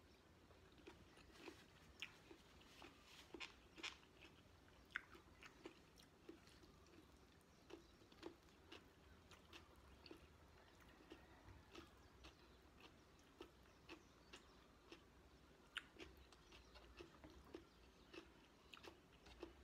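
A person chewing food close to the microphone, with wet mouth smacks and clicks coming irregularly, several a second.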